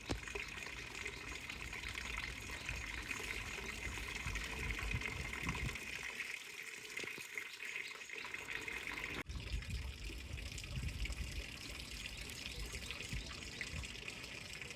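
Running water, a steady rushing and trickling, briefly cut off about nine seconds in.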